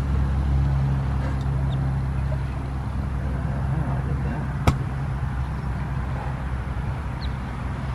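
A steady low mechanical hum made of several low tones, with one sharp click a little past halfway.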